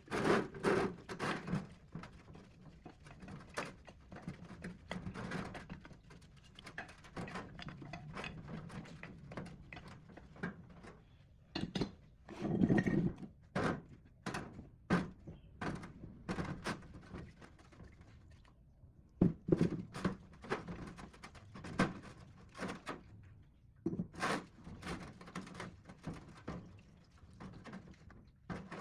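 Irregular knocks and thunks of tools and metal parts being handled and set down during workshop repair work, the heaviest clunks about halfway through and again a little later.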